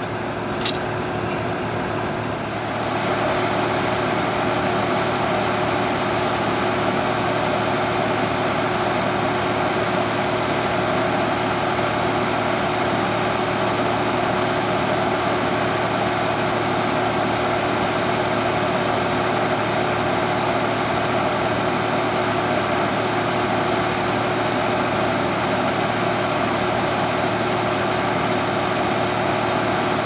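Tractor engine running steadily with a constant hum, growing louder about two and a half seconds in and then holding level.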